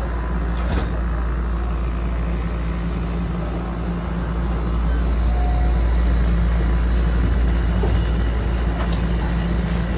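TTC subway train heard from inside the car as it pulls away from the station. A steady low rumble of motors and wheels builds as the train accelerates, growing louder from about five seconds in, with a short knock near the start.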